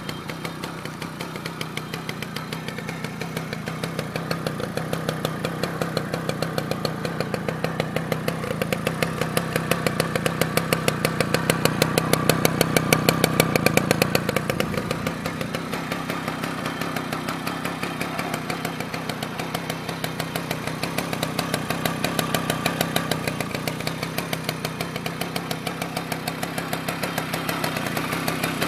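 1964 Gitan Grillo moped's 49cc single-cylinder two-stroke engine running with a rapid, even firing beat. It builds up gradually to its loudest about 13 seconds in, drops back suddenly, and swells again briefly about 22 seconds in.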